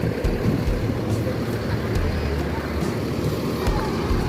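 Tour bus engines running in a packed bus parking area, a steady low rumble.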